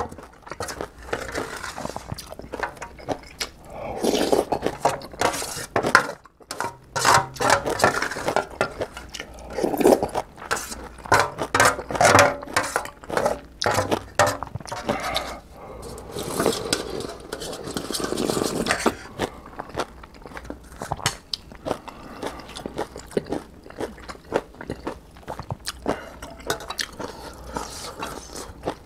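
Wooden spoon scraping and clicking against a large aluminium bowl as the last of the ramen broth and bits are scooped out, with slurping of the broth from the spoon in between.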